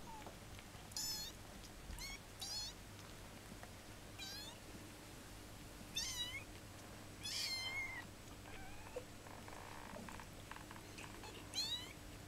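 15-day-old kittens mewing: about seven short, high-pitched cries, a second or two apart, one of them drawn out a little longer just past the middle.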